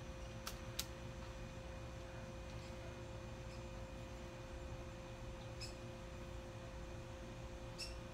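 Rubber bands being stretched around a watermelon and snapping onto the rind: a few short sharp snaps, two close together about half a second in and two more near the end, over a steady humming tone.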